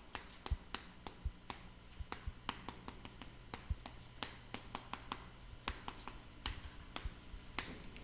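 Chalk tapping on a chalkboard while handwriting: an irregular string of sharp little clicks, several a second, as the letter strokes go down.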